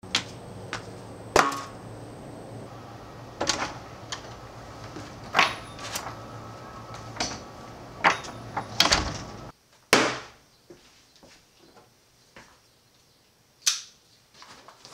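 Scattered sharp clicks and knocks over a steady low hum, which drops away suddenly; then a single loud knock, and near the end one sharp click as a folding knife's blade snaps open.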